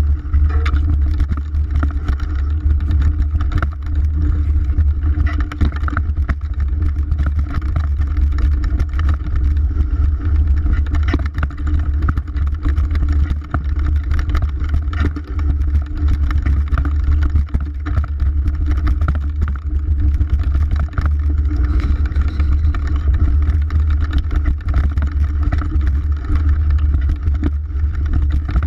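Mountain bike rattling and knocking over a rough dirt singletrack at speed, with heavy wind rumble on the GoPro's microphone.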